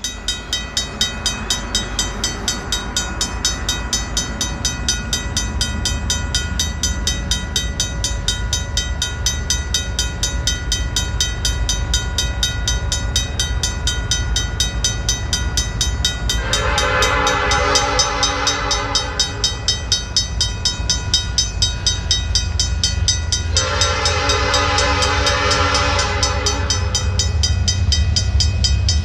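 Level-crossing warning bell ringing steadily, about two strikes a second. Over it an approaching CN diesel freight locomotive sounds its horn in two long blasts, several seconds apart, in the second half. The locomotive's low engine rumble grows louder toward the end.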